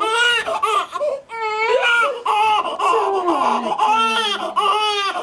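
Newborn baby crying in a string of short, high-pitched cries, one after another.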